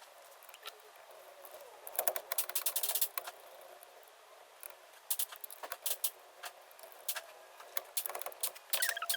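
Small metal carburetor parts and tools clicking and clinking in short clusters as an Edelbrock carburetor is reassembled by hand.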